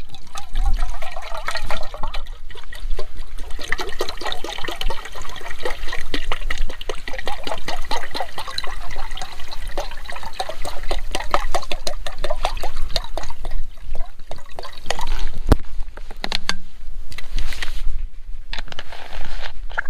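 Water glugging as it is poured from a bottle into a camping stove pot, running for about fifteen seconds with the pitch rising as the pot fills, then stopping; a few sharp clicks follow near the end.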